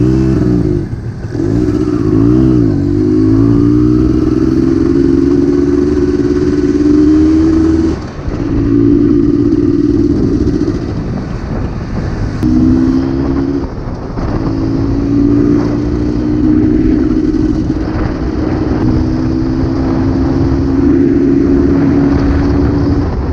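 Jawa Type 593's 250 cc two-stroke motorcycle engine running under way. Its pitch climbs as it revs, then drops back with a short dip in level several times as it shifts up through the gears.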